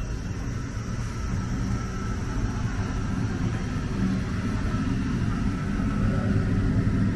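Low rumble of city street traffic, growing steadily louder, with a faint steady engine hum in it.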